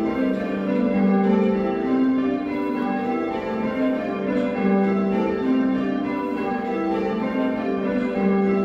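A ring of six Whitechapel church bells cast in 1978, tenor in G, rung in call changes: the bells strike one after another in a steady even rhythm, their tones overlapping and ringing on, heard from the ringing chamber below.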